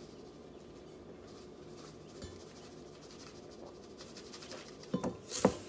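Granulated sugar being poured into a tumbler: a faint, soft hiss, then a couple of light knocks near the end.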